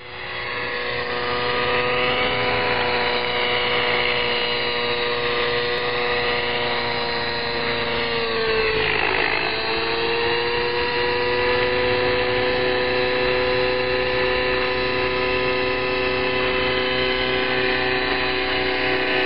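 Radio-controlled model helicopter flying overhead: a steady, high-pitched whine from its motor and rotors. The pitch dips for about a second halfway through, then recovers.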